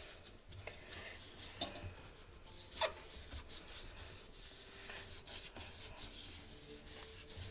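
Sponge scrubbing the rubber door seal of a front-loading washing machine, in irregular rubbing strokes, with a short squeak of the rubber about halfway through.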